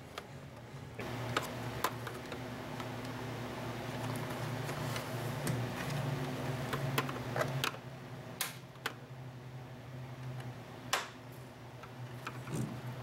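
Scattered light plastic clicks and snaps as the retaining clips on the back cover of a GM instrument cluster are pried up and the plastic housing is handled, over a steady low hum that comes in about a second in.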